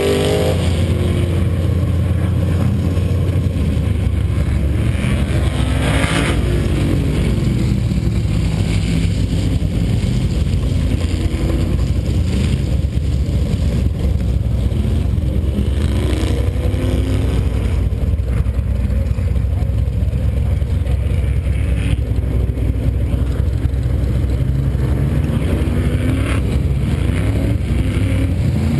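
Engine running steadily at low revs close by, a deep rumble, while race car engines rise and fall in pitch several times as they go around the track.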